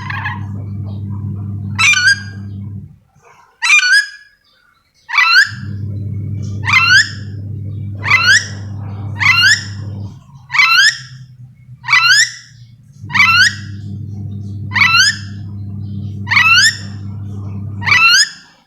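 A nuri dora parrot giving its contact call over and over, about a dozen loud, sharp, shrill calls, one every second or so. A steady low hum runs beneath, cutting out for a couple of seconds about three seconds in, changing to a lower tone for a while after ten seconds, and stopping near the end.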